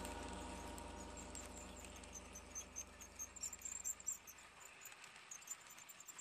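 HO scale model passenger cars rolling past on the track, their wheels giving faint scattered clicks. A low hum from the train fades away by about the middle.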